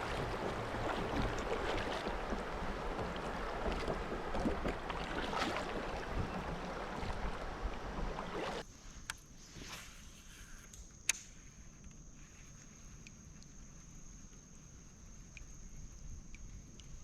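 Steady rushing noise of creek water around a kayak, which cuts off abruptly about halfway through. After that it is much quieter, with a faint steady high-pitched tone and one sharp click.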